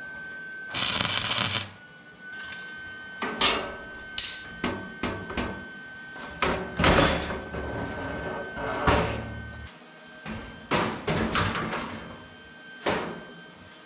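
Arc welding in a series of short, irregular bursts of crackle, tacking steel flat bar to the radiator bracket.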